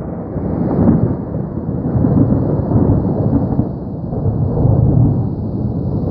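Rolling thunder from a storm overhead: a loud, low rumble that swells and eases several times over several seconds.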